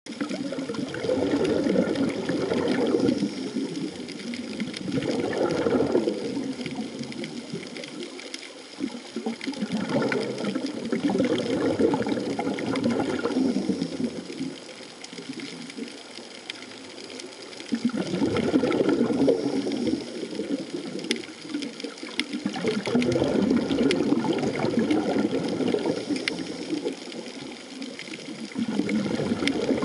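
Water noise picked up by a camera underwater: a bubbling, rushing sound that swells and fades every few seconds.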